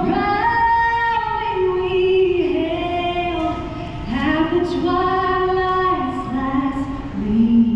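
A woman singing long held notes, each a second or two, sliding between pitches, over a low background rumble.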